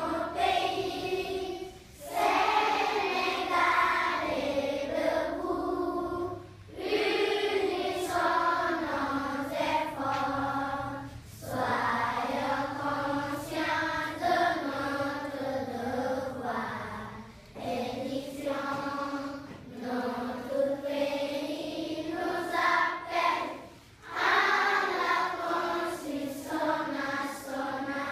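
A class of schoolchildren singing together as a choir, in long sung phrases broken by brief pauses for breath every few seconds.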